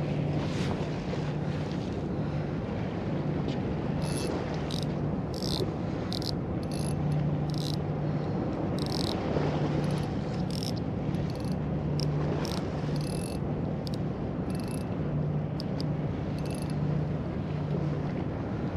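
Steady low hum, like a distant engine, under wind and sea noise, with irregular sharp high-pitched ticks from about four seconds in.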